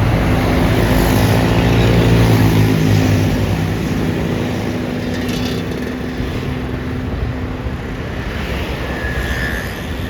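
A bus's diesel engine running loud as it passes close by, loudest in the first few seconds and then slowly easing off.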